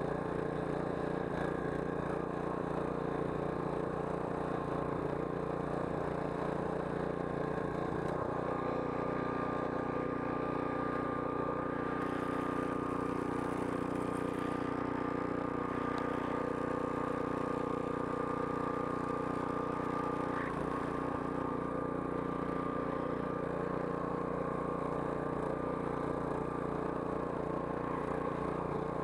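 Daewoo DAST 7565 petrol snowblower's engine running steadily under load as the machine clears wet, heavy snow. Its note shifts slightly about eight seconds in and again about twenty seconds in.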